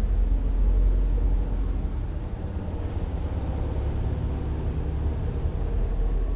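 Outboard motors on fishing boats running under power: a steady, low engine sound, loudest about a second in.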